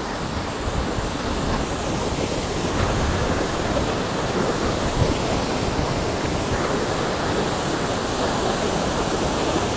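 Steady outdoor rushing noise, even throughout, with a rough low rumble underneath.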